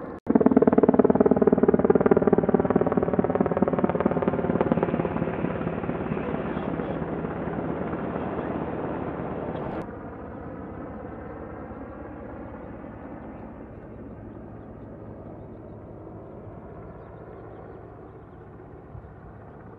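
A helicopter flying overhead, its rotor and engine loud and dropping in pitch as it passes, then fading. About ten seconds in, the sound cuts to a quieter, more distant helicopter.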